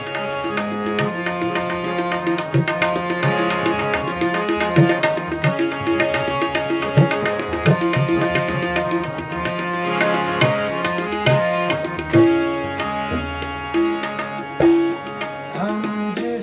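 Harmonium and tabla playing an instrumental passage: held harmonium notes and chords over a busy run of tabla strokes.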